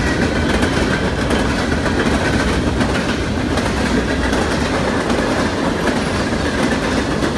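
Freight train of Norfolk Southern open-top hopper cars rolling past, a steady rumble with the clickety-clack of steel wheels over the rail joints.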